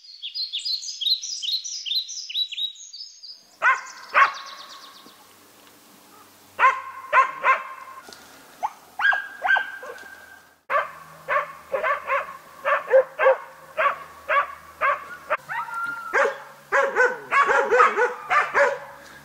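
A West Siberian Laika barking at a wild boar: sharp, repeated barks, first in short groups, then coming fast, about three a second, through the second half. It opens with a quick run of high, falling chirps.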